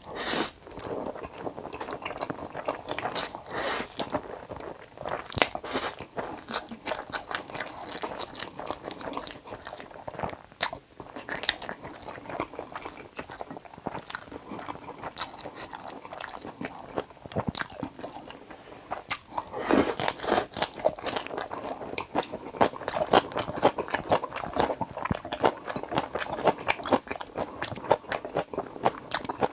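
Close-miked eating: a man slurps Chapagetti black-bean noodles and chews noodles and kimchi, with wet chewing and crunching throughout. Several louder slurps come at the start, a few seconds in, and again about two-thirds of the way through.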